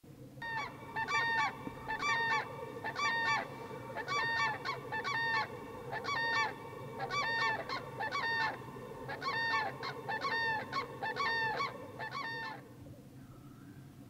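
A long series of loud honking calls from large birds, often in twos, stopping near the end. Under them runs the steady bubbling chorus of black grouse lekking on the mire.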